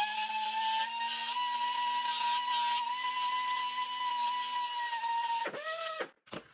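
Handheld pneumatic rotary air tool running at speed on the metal fitting in the vise: a steady high whine with air hiss. It winds down and stops about five and a half seconds in, then gives one short burst.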